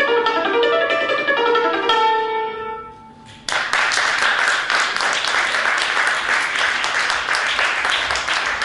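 Romanian concert cimbalom (ţambal) struck with hammers in a fast dance tune with Dobrogea influence, ending about two seconds in on a note that rings out and fades. About a second later, audience applause starts and keeps going.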